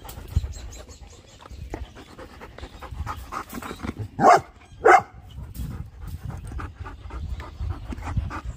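Bernese Mountain Dogs panting close up, with two short, loud barks in quick succession about halfway through.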